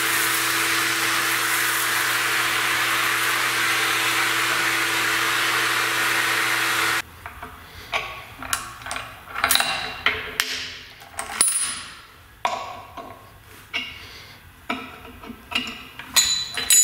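Shop vacuum running steadily with a hum as it picks up metal chips from the floor, cutting off suddenly about seven seconds in. Then scattered sharp metal clinks and knocks of parts and tools being set down and moved on a steel milling-machine table.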